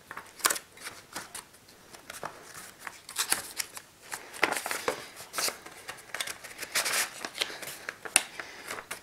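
Stiff paper wrapping rustling and crackling in a run of short, irregular scratches as hands struggle to pull it off a computer water-cooling radiator.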